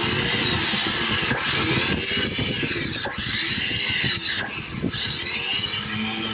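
Electric anchor windlass running under remote control, its newly fitted replacement motor driving the gearbox with a steady whirring, the test showing the repair works. It runs quietly, with a few brief dips in the sound.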